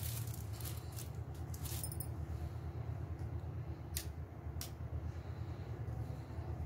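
Light crinkles and a few sharp clicks from aluminium foil and tape being pressed down on a cardboard board, over a steady low hum.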